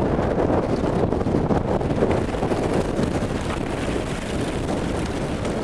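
Strong gusty wind buffeting the camera's microphone while cycling, a steady rushing that rises and falls a little.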